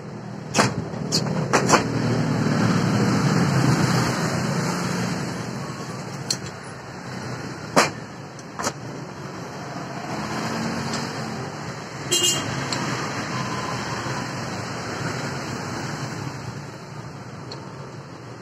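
Steel parts of an angle grinder and its mounting bracket knocking and clinking together as they are handled and fitted on a workbench. There are a handful of sharp knocks, one about two-thirds of the way through with a brief metallic ring, over a steady background rumble.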